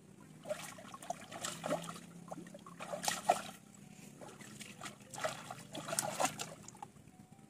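Hands splashing and sloshing in shallow muddy stream water, groping for fish, in three spells of short splashes.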